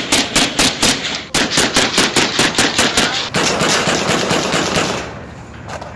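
Machine-gun fire in rapid automatic bursts, about five shots a second, with a brief pause a little after a second in, a denser run of fire that stops about five seconds in, and one last shot near the end.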